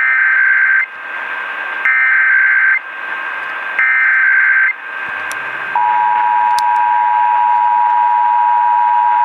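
Emergency Alert System test alert: three bursts of SAME digital header data, each just under a second long, then the two-tone EAS attention signal (853 and 960 Hz) starts about five and a half seconds in and holds steady. It opens a Required Monthly Test and is heard over radio reception with a steady hiss underneath.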